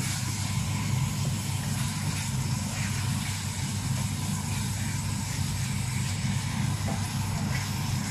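Chicken and onion sizzling in a metal wok while being stirred with a wooden spatula, over a steady low hum that is the loudest sound.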